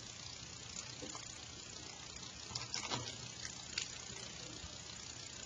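Quiet room tone: a steady faint hiss with a few soft clicks scattered through it.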